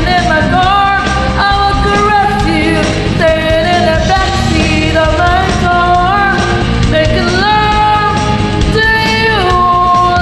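A woman singing along to a karaoke backing track, her voice holding and sliding between long sung notes over the full band accompaniment.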